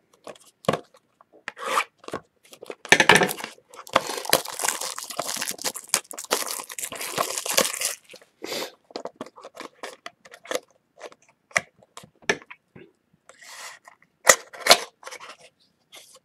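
Packaging being torn open on a trading card box: a dense crackling tear and crinkle lasting about five seconds, followed by scattered light clicks and taps of cardboard being handled, with a couple of sharper knocks near the end.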